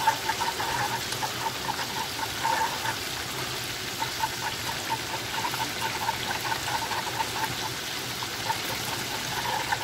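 Metal wire whisk beating a thick cheese sauce in a saucepan, quick repeated wet slapping strokes as grated cheese is worked into a béchamel to melt it. A steady hiss of frying runs underneath.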